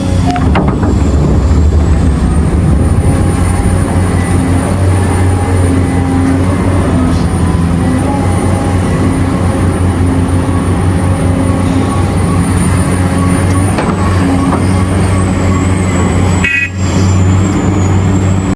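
Heavy diesel mining machinery running hard: the engines of large excavators and haul trucks make a steady, loud drone with a thin high whine above it, broken by a brief dropout near the end.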